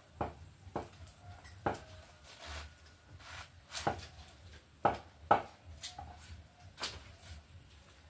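Irregular sharp knocks of food being cut on a boti, a curved blade fixed upright on a wooden base, about seven strokes with the loudest pair about five seconds in.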